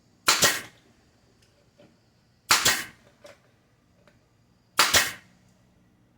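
Nails being driven into the wooden beehive parts: three sharp cracks about two seconds apart, each a quick double knock.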